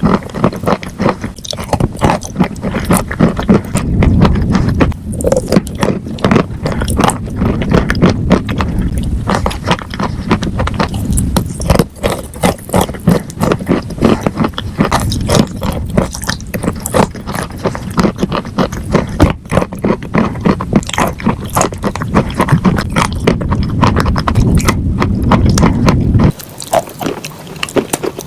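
A person chewing crunchy food: a dense, unbroken run of crackling crunches over a low rumble. The rumble drops away suddenly near the end while the crunching goes on more lightly.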